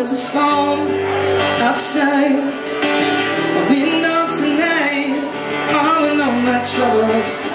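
Male singer singing live into a microphone over strummed acoustic guitar.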